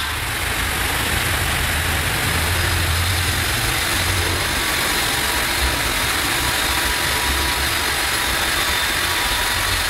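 Donatoni JET 525 CNC bridge saw's diamond blade running steadily through a stone slab under water spray, with a low hum underneath.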